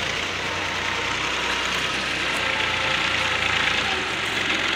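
An engine idling steadily, a low even hum under a steady hiss.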